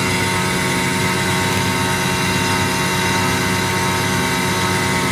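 Ferrari SF90 Spider's twin-turbocharged 4.0-litre V8 idling steadily.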